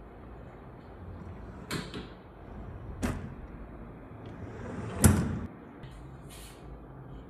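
Home-recorded door sound effects: two light knocks, then a rising sliding sound that ends in a loud slam about five seconds in, followed by a short hiss.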